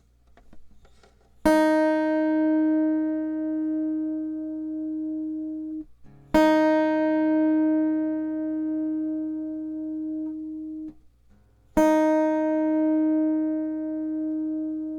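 The high first string of an acoustic guitar, tuned down a half step to E-flat, plucked open three times as a tuning reference. Each note rings about four seconds and is then muted.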